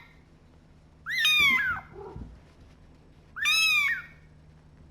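A young kitten, about three weeks old, meowing twice: high-pitched cries that rise and fall, each about two-thirds of a second long.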